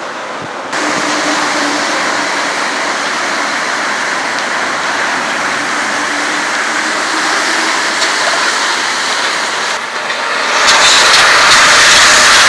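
Paris Métro MP 73 rubber-tyred train running on the line 6 viaduct, a steady rushing noise that gets much louder and fuller about ten seconds in as the cars pass close by.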